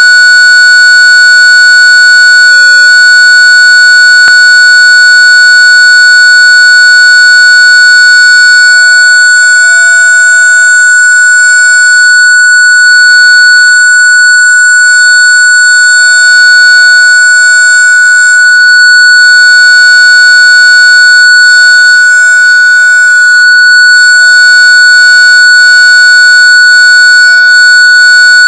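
Long, loud, steady electronic beep tone held at one high pitch. It wavers briefly twice, about three seconds in and again near the end.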